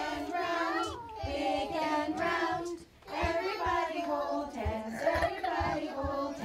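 A group of young children and adults singing a song together in sung phrases, with a short break about three seconds in. Dull low thumps come through under the singing in the second half.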